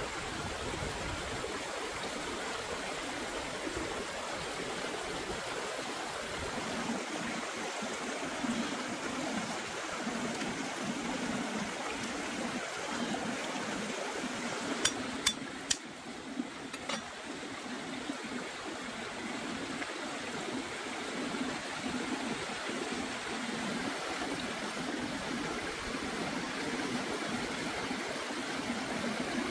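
Steady rush of a small flowing stream, with a few sharp clicks about halfway through.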